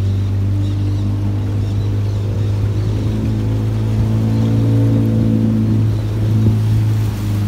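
Motor of a small aluminium river boat running steadily while under way, a loud low hum.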